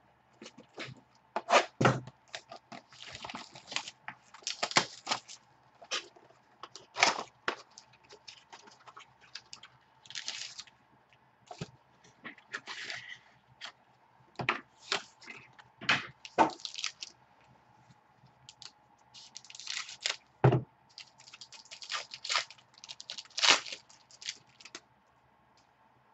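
Hands opening small cardboard trading-card boxes and handling the cards: an irregular run of sharp taps, clicks and short rustles, with a few heavier knocks against the table.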